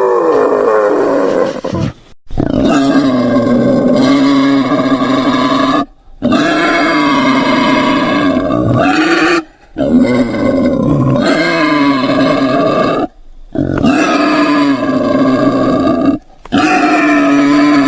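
Wild boar calling: a string of long, drawn-out pitched calls, each about three seconds, broken by short clean gaps.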